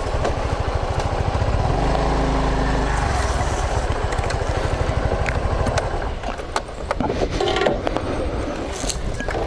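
Honda Lead 125 scooter's single-cylinder four-stroke engine running at low speed with a steady pulse, picking up briefly under a little throttle about two seconds in. Scattered clicks and scrapes come in the last few seconds.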